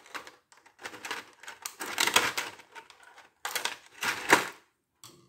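Small scissors snipping at a clear plastic clamshell tray, the stiff plastic crackling and clicking in several short bursts. The loudest bursts come about two seconds in and again past the four-second mark.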